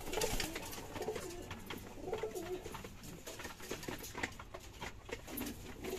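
Racing pigeons cooing, a run of low, wavering coos repeated every second or so, with scattered short rustles and knocks.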